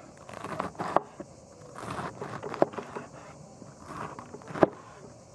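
Large kitchen knife slicing a head of green cabbage on a wooden cutting board: crisp, irregular crunches of the leaves being cut, with sharp knocks of the blade on the board, the loudest near the end.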